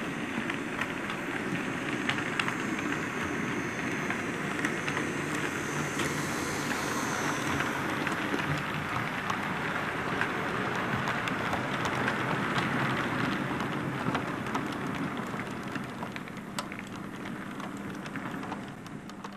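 Model trains running along the track close by: wheels rumbling and clicking over the rail joints, with a faint motor hum. The sound fades away near the end.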